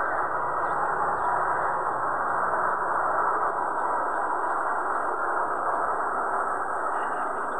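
Steady jet engine noise from a twin-engine airliner climbing out after takeoff.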